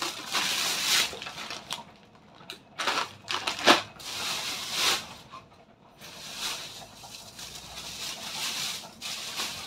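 Thin plastic shopping bags and food packets rustling and crinkling as they are handled, in irregular bursts, with a few sharp crackles about three to four seconds in.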